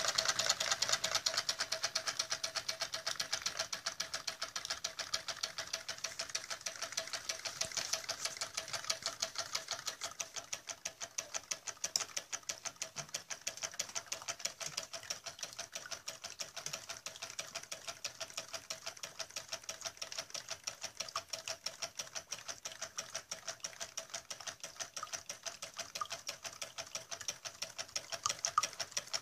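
Homemade Stirling engine running with its piston-driven water pump, its crank linkage and pump making a rapid, steady mechanical clicking.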